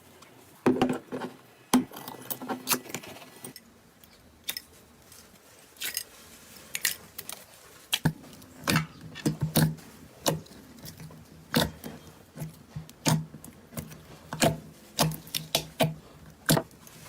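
Slime being squeezed and poked by hand, making irregular sharp pops and clicks, more frequent in the second half.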